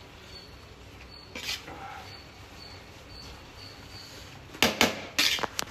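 A metal spoon scraping and knocking against a metal cooking pot as cooked biryani rice is lifted and turned over: a soft rustle of the rice about a second and a half in, then a quick run of sharp scrapes and clicks near the end.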